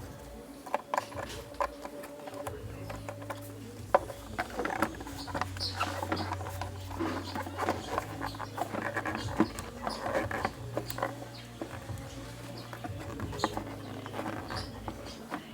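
Rubber air intake hose of a Nissan Teana J32 being worked and pushed onto its fitting by hand: irregular clicks, rubbing and brief squeaks of rubber and plastic over a steady low hum.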